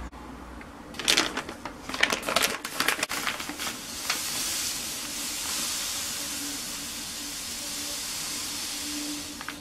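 Plastic bag of granulated sugar crinkling as it is handled and tipped, then sugar pouring out in a steady hiss into a cup of cream for about five seconds.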